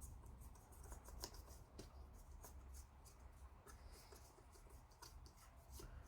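Faint, irregular scratchy ticks of a damp paintbrush working weathering powder onto a plastic model kit.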